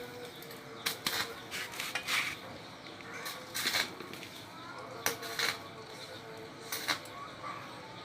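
Irregular metallic clinks and clanks of tools or metal parts being handled, a few each second at uneven spacing, over a faint steady hum.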